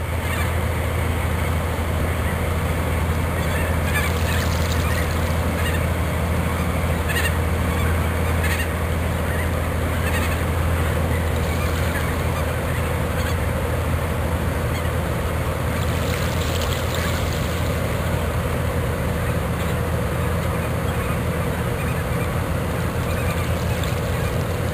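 Waterfowl calling with short honking calls, again and again, mostly in the first two-thirds, over a steady low drone.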